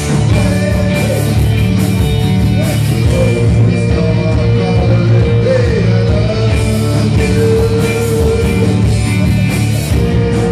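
Live rock band playing: electric guitars, bass guitar, drums and an electronic keyboard, with a man singing into the microphone.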